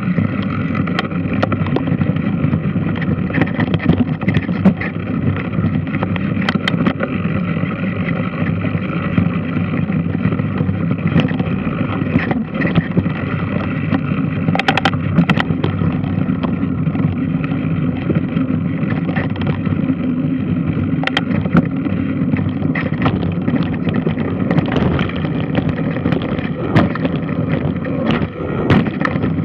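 Large washing machine running: a steady churning drone with water noise and scattered sharp clicks and knocks throughout.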